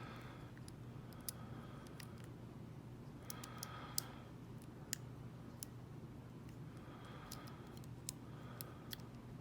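Faint, scattered small clicks and brief light scraping from a lock pick and tension wrench working the pins inside a Mako 427 lock.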